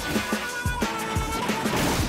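Upbeat cartoon music with held tones over a drum beat.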